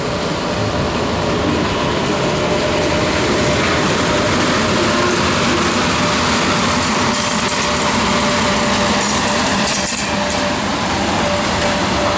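EP1M electric locomotive running past close by at the head of an arriving passenger train: a steady, loud noise of the locomotive and its wheels on the rails, with a thin steady hum.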